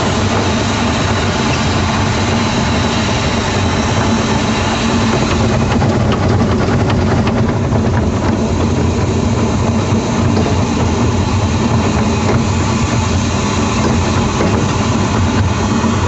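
Diesel engine of a 15-inch gauge miniature railway locomotive running steadily, with a run of faint clicks around the middle.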